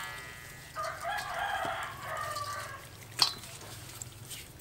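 A rooster crows once, a ragged call of about two seconds starting about a second in. A sharp knock follows near the three-second mark.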